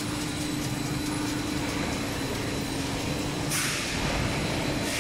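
Automatic sheet-metal shearing and stacking line running with a steady hum, with a short hiss about three and a half seconds in.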